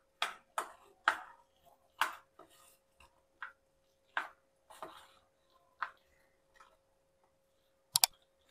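Spatula stirring a wet mix of chopped vegetables, cheese and mayonnaise in a stainless steel bowl: irregular scrapes and knocks against the steel, about one or two a second. Two sharp clicks near the end.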